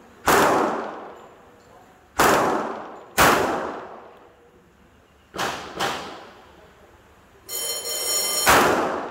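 Colt Defender .45 ACP pistol fired six times at an uneven pace, each sharp shot trailing off in echo. About a second before the last shot a ringing tone sounds.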